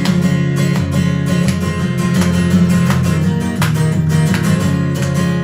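Acoustic guitar strumming chords, with no singing.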